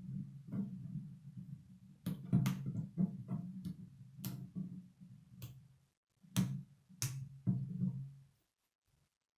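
K'nex plastic rods and connectors being snapped together and handled: a string of sharp, irregular plastic clicks, half a dozen of them loud, over a low hum, all stopping about a second before the end.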